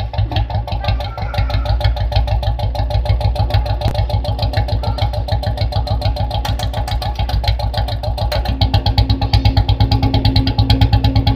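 Royal Enfield Bullet single-cylinder engine idling with its steady, even thump, a fast regular beat of exhaust pulses; the beat gets a little louder about eight seconds in.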